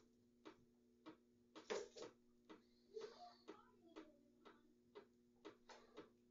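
Faint, regular ticking, about two ticks a second, over a steady low hum. A louder brief rustle comes a little under two seconds in.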